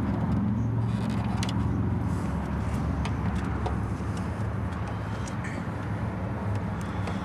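A steady low engine-like rumble from a running vehicle or motor, with light scattered clicks and taps of hand tools as the grill screws are worked.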